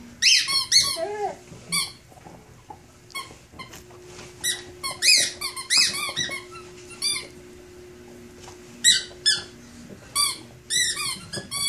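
Rubber squeaky dog toy squeaked over and over as a dog chews it: short, high squeaks that come in quick runs of two or three, with pauses of a second or so between runs.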